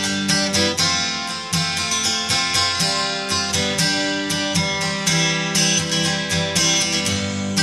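Background music: a guitar played in a steady run of picked and strummed notes.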